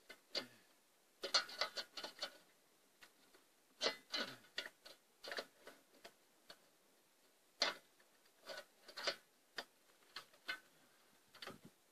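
Faint, irregular light clicks and knocks, singly and in short clusters, from hand work on the metal wellhead pipework of a solar-powered submersible pump.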